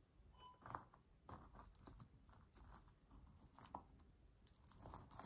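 Faint, irregular clicks and clinks of small metal costume-jewelry pieces knocking together as fingers pick through and untangle them in a pile.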